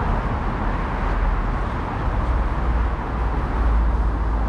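Steady outdoor street noise: road traffic with a strong low rumble that grows heavier about three and a half seconds in.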